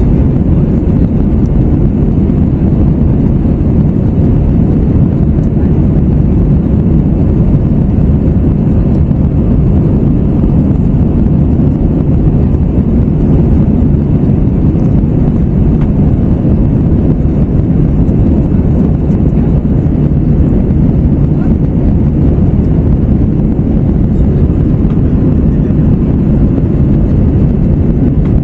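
Steady cabin roar inside an Airbus A321-111 jet airliner climbing under engine power, a deep, even rumble of CFM56 turbofans and airflow with no change in pitch or level.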